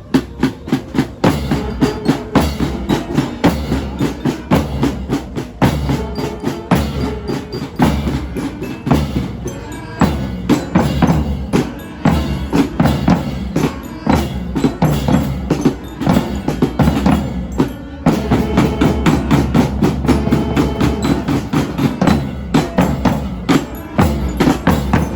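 Music with a busy percussion beat: rapid drum and wood-block strikes over a steady bass.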